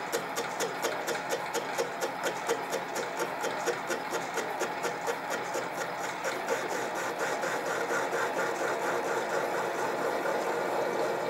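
Sieg mini lathe running at about 250 rpm, facing a crank held in its three-jaw chuck with light cuts. A regular tick comes about four times a second, once per turn of the chuck, and in the second half it gives way to a steadier running and cutting sound.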